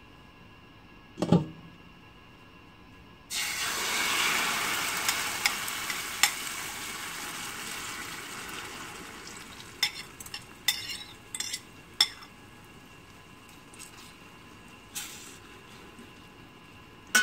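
A single knock about a second in. Then, about three seconds in, beaten egg and chopped cha-om (Senegalia pennata) hit a hot stainless steel pan and start sizzling loudly all at once, the sizzle fading over several seconds. After that a metal spoon clinks and scrapes against the pan as the omelet is spread.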